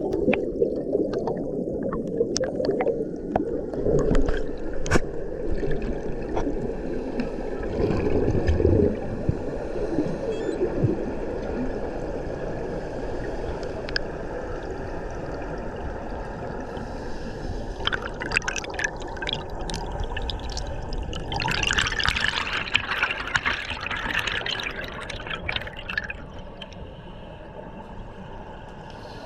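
Air bubbles heard underwater in a deep diving pool: an irregular low gurgling and bubbling, with a louder stretch of fizzing, crackling bubbles from about 18 to 26 seconds in.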